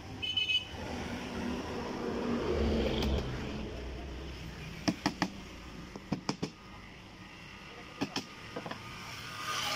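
Hammer tapping on a wooden door panel and its guide strip: short groups of two or three sharp taps, about five seconds in, around six seconds and again near eight seconds.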